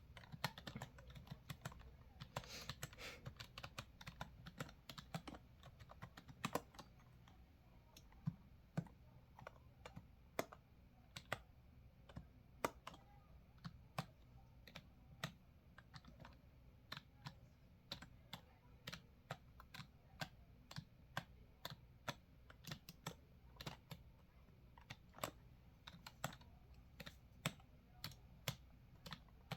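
Typing on a computer keyboard: quiet, irregular keystroke clicks, a few a second, with short pauses between runs.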